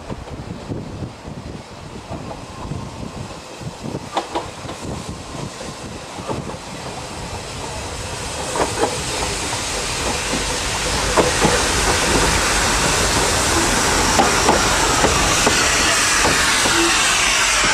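Narrow-gauge steam locomotive approaching and passing close. The rail and wheel noise grows louder from about halfway, then a loud hiss of steam takes over as the engine draws level.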